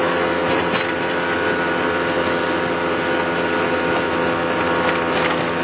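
Boat's outboard motor running steadily at a constant speed under way, with wind and water noise mixed in.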